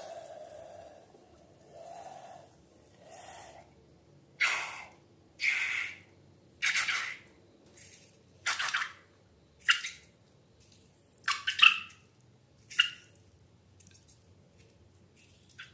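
Wet squelches of slime being squeezed and worked by hand, about a dozen short squishes roughly a second apart, the later ones sharper and more clicky.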